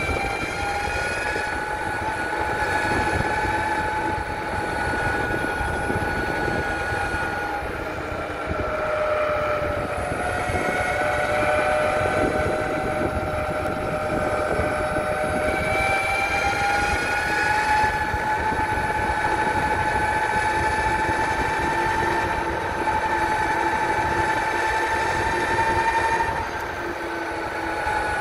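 SYL-08 V3 electric mountainboard's motors whining while it is ridden, several pitches together that slowly drop and climb again as the speed changes. Underneath runs a rough, fluttering rumble.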